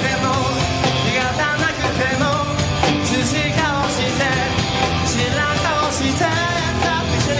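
Live rock band playing, with a man singing into a microphone over electric guitar.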